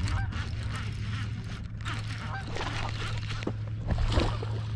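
Geese honking in repeated short calls, over a steady low hum.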